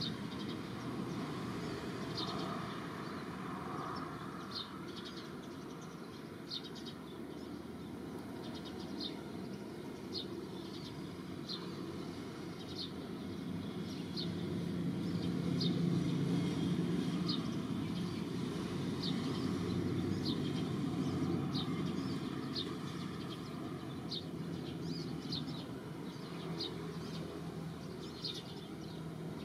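A bird gives a short high chirp about once a second, over a steady low rushing noise of moving water that grows louder midway and then eases.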